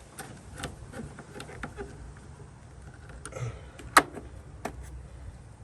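Scattered light clicks and knocks of hand tools and metal parts being handled while a battery cable is fitted in a car's engine bay, with one sharp click about four seconds in.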